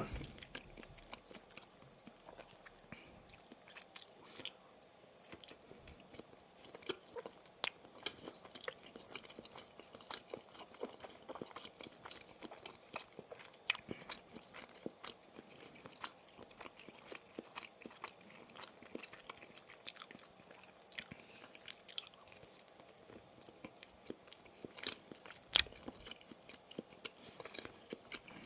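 Close-miked chewing of sausage, with constant small wet clicks and smacks and a few louder sharp bites.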